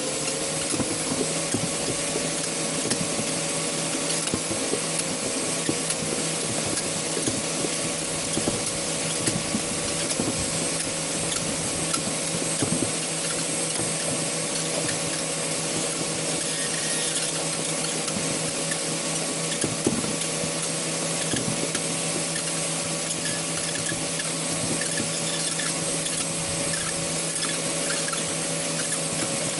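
Homemade chainsaw-blade shredder's spinning cutter running at speed, a steady whir with irregular scraping and rattling as a toy apple bounces on the blades and is ground down.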